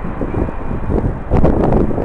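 Strong wind buffeting the microphone in irregular gusts, with a loud surge of rumbling about one and a half seconds in.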